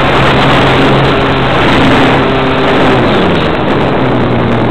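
Model airplane's motor and propeller droning, picked up by a camera slung under the plane and mixed with loud wind rush; the drone's pitch wavers a little about three seconds in as the plane manoeuvres.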